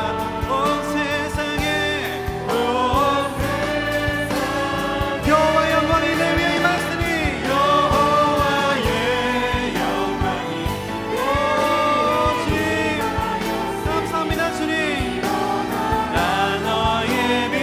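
A worship team of several male and female voices singing a Korean praise song together, accompanied by acoustic guitar, with a steady beat running through.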